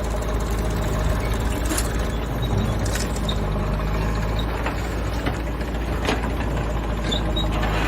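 A JCB backhoe loader's diesel engine running steadily, with several short sharp knocks scattered through.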